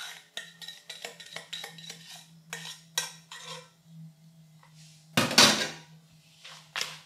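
Spatula scraping and tapping against a stainless steel saucepan as sticky honey-and-sugar syrup is emptied into a glass mixing bowl, in a quick run of clicks and scrapes. A louder clatter of kitchenware about five seconds in, over a steady low hum.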